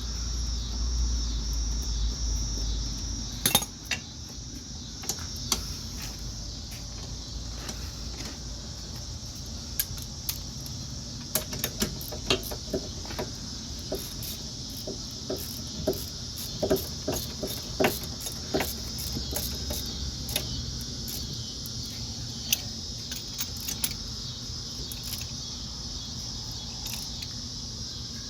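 Scattered metallic clicks and clinks from a socket wrench and bar on the front hub assembly's mounting bolts as they are tightened, thickest in the middle of the stretch. A steady high-pitched drone runs behind them, and there is a low rumble in the first few seconds.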